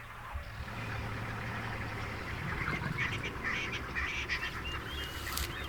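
A lion biting into an African wild dog, with irregular crunching and cracking of bone that grows denser from about halfway through, over a steady low rumble. A few short high chirps come near the end.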